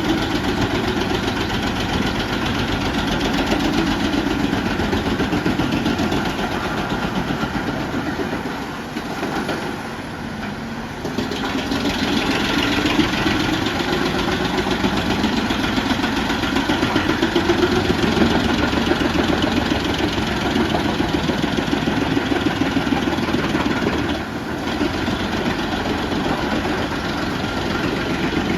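Truck-mounted wood chipper running steadily under work, its engine and drum making a dense, even machine noise that drops briefly twice.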